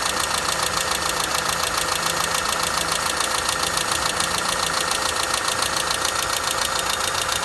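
Renault K4M 1.6-litre 16-valve four-cylinder petrol engine running steadily, most likely at idle, with a fast, even, rhythmic knock in time with the engine.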